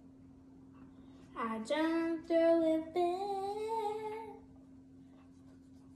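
A young girl sings a short phrase of a few held notes, starting about a second and a half in and lasting about three seconds, the pitch stepping from note to note. A faint steady hum runs underneath.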